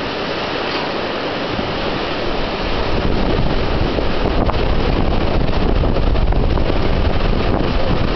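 Wind buffeting the microphone over a steady rushing hiss. The low buffeting grows heavier about three seconds in.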